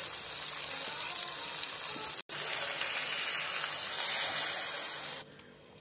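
Water pouring in a stream into a cooking pan onto ground coconut paste for a kurma, a steady splashing hiss. It breaks off for an instant about two seconds in and stops near the end.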